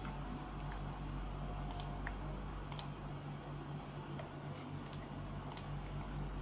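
A few sparse, light clicks of a computer mouse navigating menus, over a steady low electrical hum.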